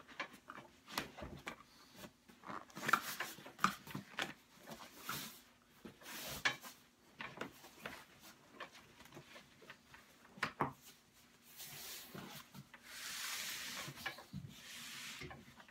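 Handling noise from fitting a seat cushion cover onto a car seat: scattered clicks and knocks as the cover is hooked and worked into place. Near the end, a few seconds of rubbing as a hand smooths the cover over the cushion.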